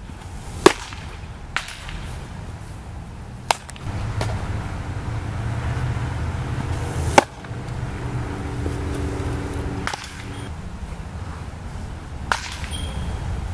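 Pitched baseballs smacking into a catcher's leather mitt: two sharp cracks about six and a half seconds apart, each following a delivery, with a few fainter knocks between. A low rumble swells in the middle.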